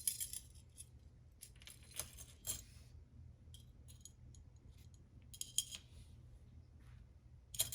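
Metal fishing tackle, spinners and lure blades, clinking and rattling lightly as it is handled and laid out, in scattered short clicks a second or so apart, over a low steady hum.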